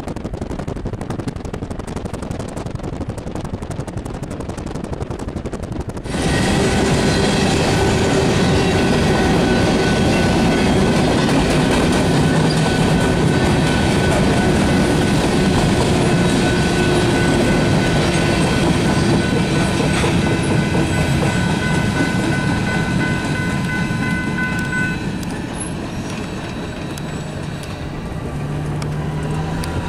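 Freight diesel locomotives rumbling in the distance with some wind noise, then, after an abrupt cut about six seconds in, a long freight train of covered hopper cars rolling past close by: loud steady rolling of steel wheels on rail with a few thin steady tones, easing a little near the end.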